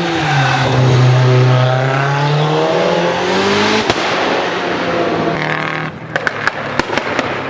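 Race car engine running, its pitch dropping, holding, then climbing. There is a single sharp bang about four seconds in, and near the end a rapid string of exhaust pops and crackles.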